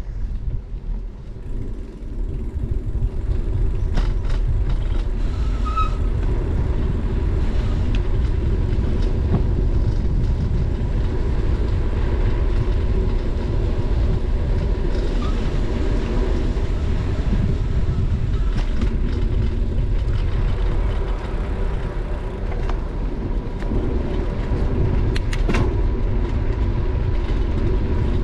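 Steady low rumble of wind buffeting a bicycle-mounted GoPro and tyres rolling on asphalt, growing louder about two seconds in, with a few light clicks and rattles.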